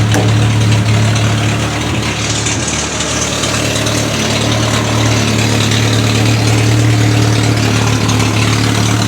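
Triumph Spitfire 1500's four-cylinder engine idling steadily, running on a straight exhaust.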